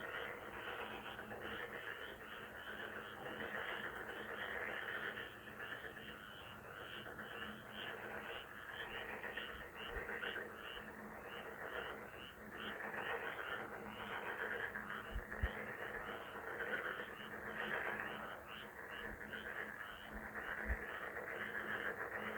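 A chorus of many frogs croaking together in a dense, rapidly pulsing mass that swells and fades in waves every few seconds.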